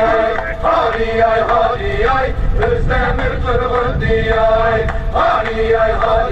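A man's voice singing in a chant-like way, in short held phrases that start and stop repeatedly, over a low rumble.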